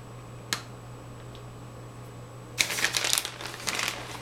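Crinkling and rustling of cheese packaging being handled: one short click about half a second in, then a dense burst of crinkling from about two and a half to four seconds.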